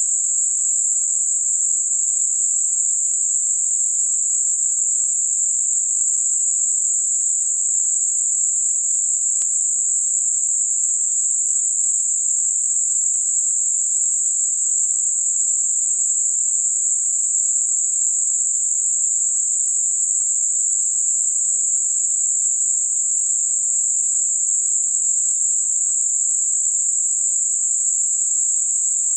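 Steady high-pitched hiss of synthetic narrowband noise centred on 7.5 kHz, with a Gaussian bell-curve band rolling off between about 5.5 and 9.5 kHz, made as a tinnitus-masking sound. It holds one unchanging level.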